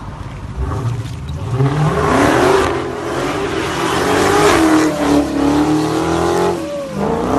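Dodge Charger Hellcat's supercharged V8 revving hard through a burnout, the rear tyres spinning. The engine pitch climbs and wavers, holds high for a while, then drops near the end as the throttle comes off.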